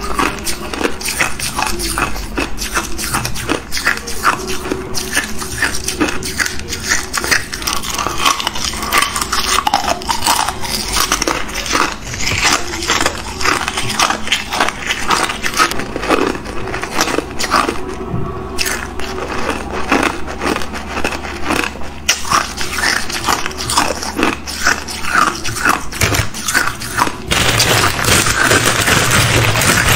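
Hard clear ice cubes crunching and cracking as they are bitten and chewed, a rapid string of sharp cracks with a brief pause a little past the middle. Near the end, ice pieces rattle and a plastic bag rustles as a hand picks through the bag of ice.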